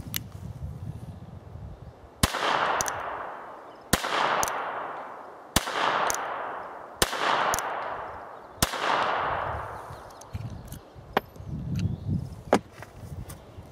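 Five shots from a North American Arms mini revolver in .22LR, fired about a second and a half apart, each shot followed by a short echo dying away. Near the end come a couple of light clicks as the revolver is handled.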